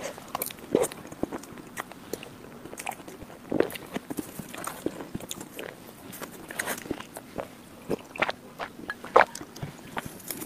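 Close-miked mouth sounds of a person eating soft chocolate lava mousse cake from a spoon: chewing and mouth smacks with irregular sharp clicks.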